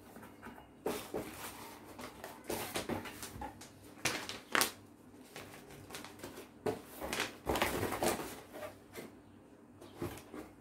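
Cardboard box and plastic packaging being handled and rummaged through: irregular rustles and light knocks.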